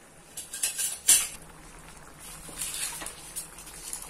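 Metal spoon clinking and scraping against a flat iron tawa and steel cookware. A few sharp clinks come in the first second or so, the loudest just after a second in, then quieter scraping and clatter.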